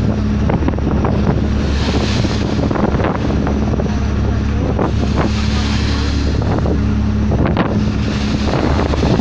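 Water rushing and churning along a moving boat's hull over the steady low drone of its engine, with wind buffeting the microphone.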